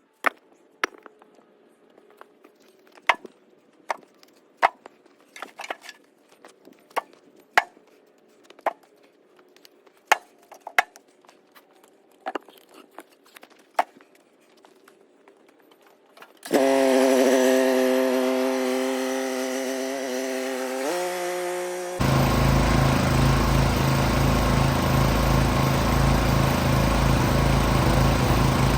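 A series of sharp knocks, about one a second, like pieces of wood knocking together. About sixteen seconds in, a small petrol engine starts suddenly and runs; its pitch sags and then drops a step. From about twenty-two seconds in it gives way to a louder, rougher, steady engine run.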